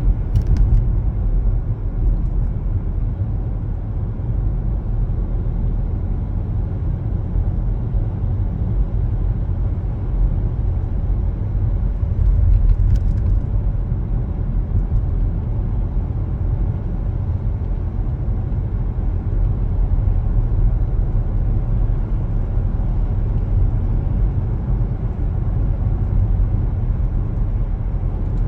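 Car driving on city roads: steady low road and engine rumble with tyre noise, unchanging throughout.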